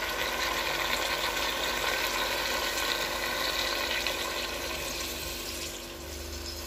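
Water poured from a plastic measuring jug into a pot of fried vegetables and meat: a steady splashing pour that eases off near the end.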